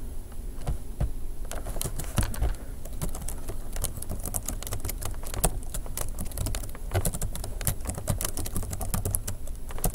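Typing on a computer keyboard: quick, irregular keystrokes, sparse at first and coming in a denser run after a few seconds.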